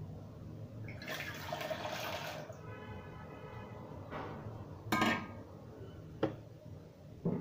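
Water poured or running into a metal bowl for about a second and a half, followed by a brief ringing. Then a sharp knock of the metal bowl set down on the counter and a couple of lighter clicks of kitchenware.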